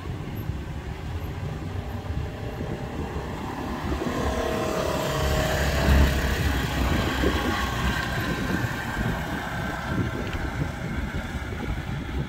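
Engines of side-by-side utility vehicles (UTVs) driving across sand. The engine noise swells as one passes close about six seconds in, then eases as they move away.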